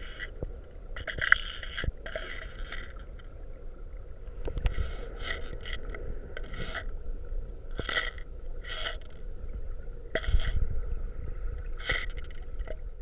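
Underwater sound on a submerged action camera: short rattling bursts, several in quick pairs, with a few sharp clicks over a steady low rumble, as a rattle-equipped squid jig (egi) is jerked along the rocks.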